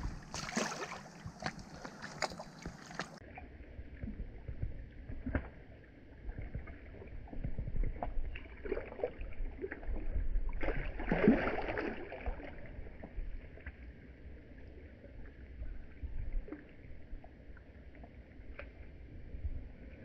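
Water sloshing and splashing around a tarpon held in the shallows by hand as it is revived for release, with a louder stretch of splashing around eleven seconds in. The sound turns duller after about three seconds.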